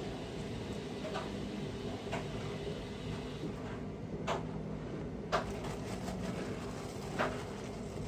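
Kitchen handling noises while food is prepared in a glass bowl: five short, sharp taps and knocks, the loudest a little past the middle, over a steady low hum.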